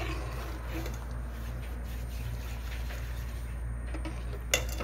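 Ladle stirring sugar syrup in an aluminium pot, with one sharp knock about four and a half seconds in, over a steady low hum.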